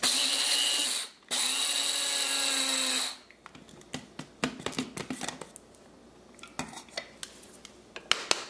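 Small electric blade coffee grinder grinding toasted sesame seeds in two short bursts, about one second and then two seconds long, which leaves the seeds only half-ground rather than powdered. The grinder is then knocked and tapped to empty it, with a quick run of taps near the end.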